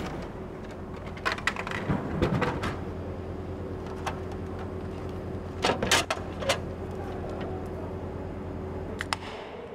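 Drink vending machine in use: clicks and clatter of coins going in and a can dropping with a low thump about two seconds in, then a steady machine hum. Around six seconds the plastic flap of the dispensing bin clatters as the can is taken out, with a couple more clicks near the end.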